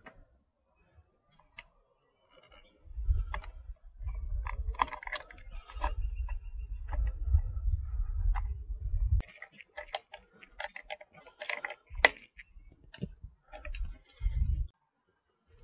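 Small irregular clicks and ticks of hands fitting and tightening the speedometer cable onto the back of an ATV's speedometer head, with a low rumble from about three to nine seconds in.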